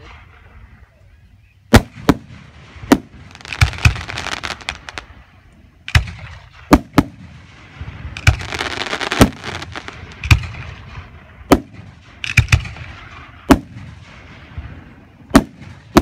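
Aerial firework shells bursting in a display, about fifteen sharp bangs at uneven gaps of a fraction of a second to two seconds, with a rough hiss of noise between the bangs.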